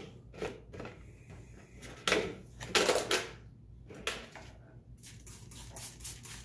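Trigger spray bottle misting water, with a couple of short sprays, then light plastic clicking and rattling as a clear plastic dome lid is handled.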